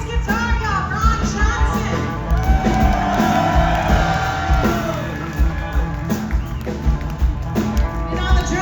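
Live blues-rock band playing loud, with a lead line of bent and held notes over drums and bass.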